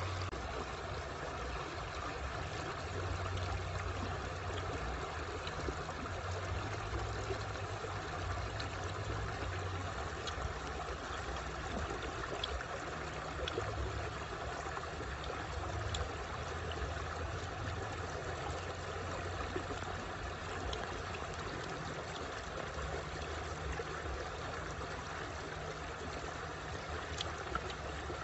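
Shallow stream running over rocks, a steady rushing and trickling of water with a low rumble underneath.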